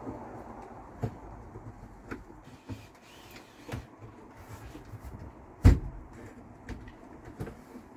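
Light clicks and knocks of a wooden wardrobe door being worked on its clip-on concealed hinges, with one sharper, louder knock a little past the middle.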